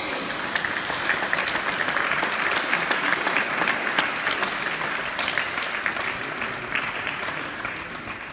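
Audience applauding, a dense patter of hand claps that starts about half a second in and fades out near the end.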